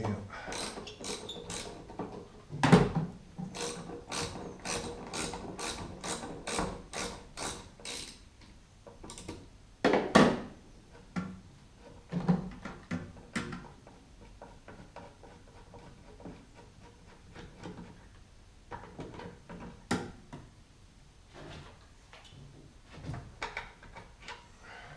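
Ratchet wrench clicking in a run of quick, even strokes, as when undoing bolts, then scattered ratchet clicks and a few louder knocks.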